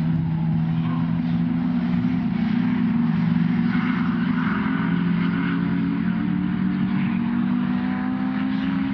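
Jaguar Mk 2 saloon racing cars' straight-six engines running hard through a corner, a steady engine note that rises slightly in pitch near the end.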